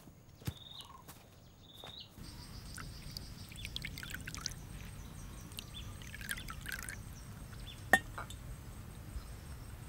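Crickets chirping about once a second, then tea poured from a small black teapot into a cup in splashy streams, with one sharp clink of ceramic a little before the end.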